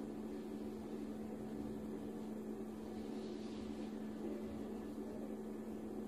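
A steady machine hum with a low droning tone, unchanging throughout, and a faint soft rustle about three seconds in.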